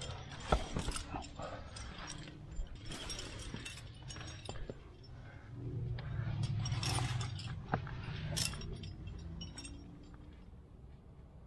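Climbing hardware racked on a harness (carabiners, quickdraws, cams) clinking and jingling in scattered clicks as the climber moves, with scuffs against the rock and a louder low rush about six seconds in.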